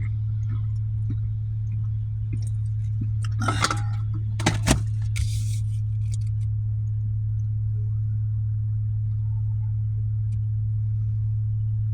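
Steady low hum of a car idling, with a few brief knocks and a short hiss about four to five seconds in.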